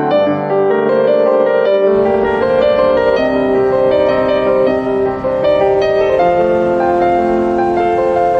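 Piano music with long held notes, changing about once a second. About two seconds in, a faint steady background hiss comes in beneath it.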